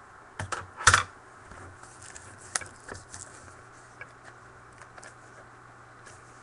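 Scissors snipping to open a sealed trading-card box: a few sharp snips and clicks, the loudest about a second in, then light scattered handling ticks.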